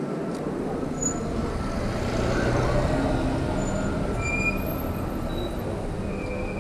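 City street traffic: a steady rumble of passing vehicle engines.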